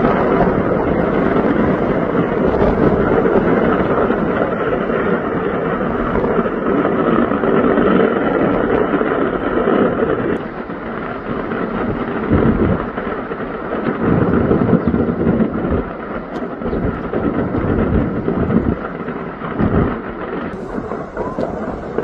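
Steady rushing, rumbling noise of a large fire burning, with wind on the microphone. After about ten seconds it gets a little quieter and more uneven, with a few low thumps.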